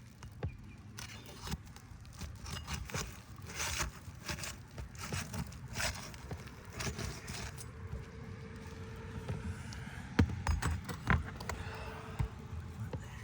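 Brittle asphalt roof shingle being worked loose and pried out from under the course above it: irregular scraping and crackling with sharp clicks over a steady low rumble, loudest about ten and eleven seconds in.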